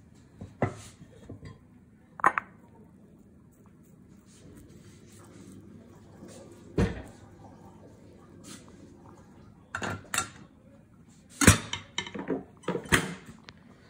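Plastic rice paddle knocking and scraping against a rice cooker's pot and ceramic bowls as cooked rice is served out: scattered taps and clinks, more of them in the last few seconds.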